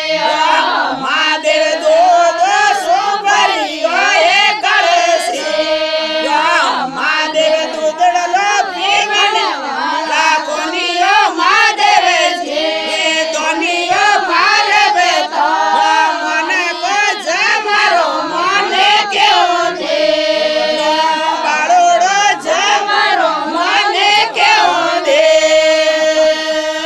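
A group of voices singing together, loud and continuous, with a held note near the end.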